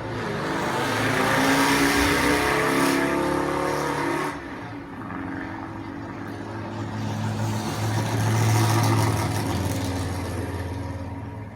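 Racing sports-car engines passing. One engine note sweeps past in the first four seconds and drops away suddenly. A deeper, steadier engine note then swells to a peak a little past the middle and fades.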